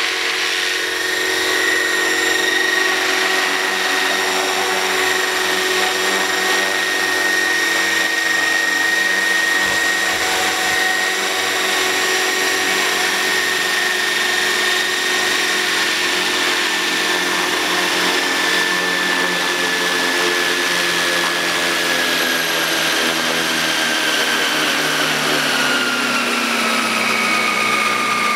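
Electric motor and rotor drive of a Roban Bell 429 scale RC helicopter, powered by two 6S batteries, whining steadily as it sits on the grass with its rotors turning after touchdown. Over the last several seconds the whine falls in pitch as the rotor spools down.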